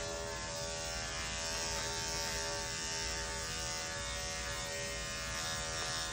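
Electric dog-grooming clippers running steadily while trimming the fur on a dog's ear.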